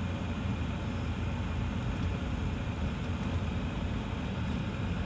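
Car running along a lane, heard from inside the cabin: a steady low engine and tyre rumble with no distinct events.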